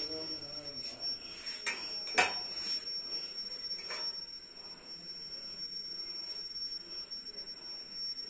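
Stainless steel dishes clinking and knocking a few times on a kitchen counter, the sharpest knock about two seconds in, over a faint steady high-pitched whine.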